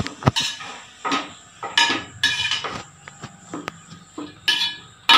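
A metal spoon scraping and clinking against a metal pan in a string of short strokes, stirring grated carrots in ghee.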